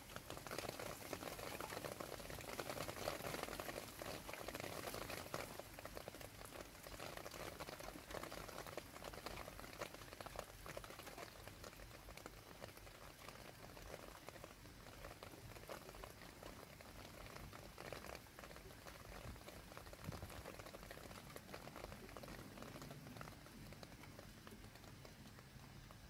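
Light rain falling into a shallow puddle: a faint, dense pattering of drops that thins out over the second half.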